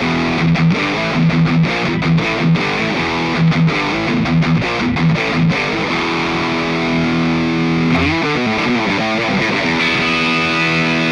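Electric guitar, a Fender Stratocaster, played through a MOOER GE200 multi-effects unit on its "SWEETY" preset, with a driven tone. Short, choppy rhythmic chords for the first five seconds or so, then a chord left ringing, a slide about eight seconds in, and sustained notes.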